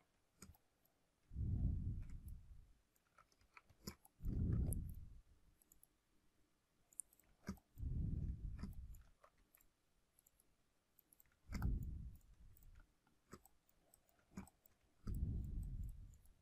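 Quiet, scattered computer mouse clicks. About every three and a half seconds there is a low, muffled puff of breath on the microphone.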